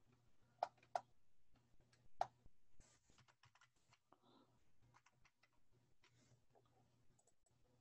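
Faint computer keyboard keystrokes as a short command is typed: a few sharper key clicks in the first couple of seconds, then a scatter of lighter taps. A faint low hum sits underneath.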